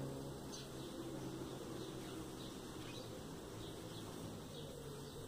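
Faint, short high-pitched chirps from a small bird, repeated every second or so, over a steady low hum.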